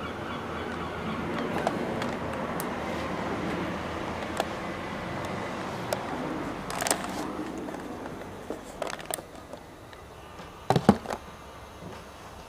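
Noise of a jet aircraft passing overhead, fading away over several seconds, then a few sharp knocks and clicks of the camera being handled, the loudest about eleven seconds in.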